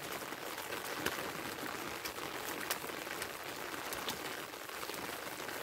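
Light rain falling steadily, with scattered sharp drop ticks, over the faint wet squish of hands packing a clay-and-plaster mix into a wooden brick mould.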